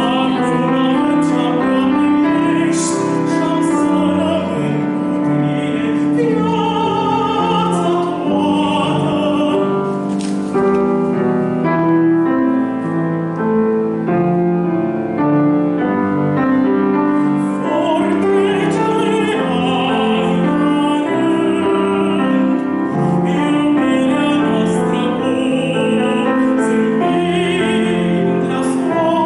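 Countertenor singing a Romanian art song with vibrato, accompanied by piano.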